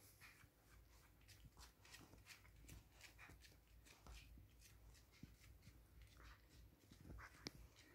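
Near silence with faint rustling and small clicks throughout, and one sharper click near the end.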